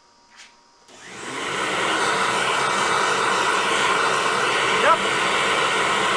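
A switch click, then an electric motor spins up over about a second and runs steadily at full speed, with one brief squeak about five seconds in.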